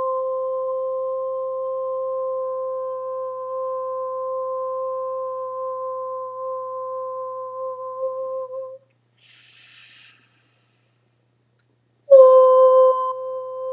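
A woman toning: a single pure, high held note, hummed on an open vowel, sustained about nine seconds before breaking off. A soft breath follows, then after a pause she starts the same note again, sliding down onto it.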